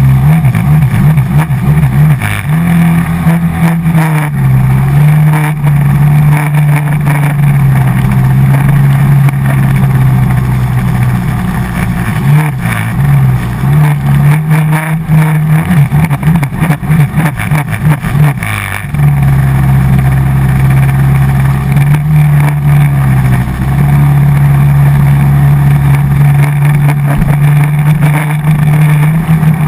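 Hydrospace stand-up jet ski's 110 hp engine running hard at speed. Its note shifts up and down with the throttle, steady in some stretches and choppy in others.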